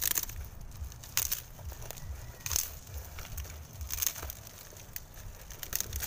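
Dry sticks and leaf stalks crackling and snapping as they are broken and bunched by hand, in about five sharp bursts roughly a second apart.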